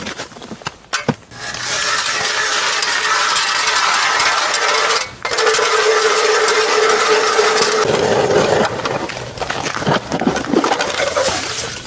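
Hand-cranked ice auger drilling through thick, wet river ice: a steady grinding scrape of the steel blades, cranked in two spells with a short break about five seconds in. The drilling stops about eight seconds in, followed by uneven knocks and scrapes as the auger comes out of the slushy hole.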